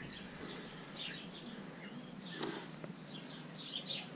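Small birds chirping in short high calls, scattered through, with the strongest about two and a half seconds in.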